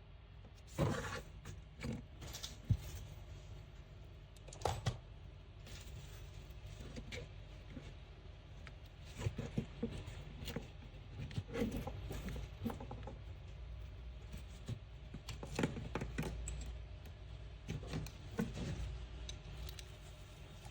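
Irregular clinks and taps of small metal parts being handled, with a steady low hum underneath.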